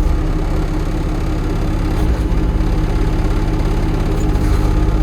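Excavator's diesel engine running steadily while the machine slews, with the hydraulic slew motor sounding a bit grumbly. The mechanic suspects leakage inside the slew motor.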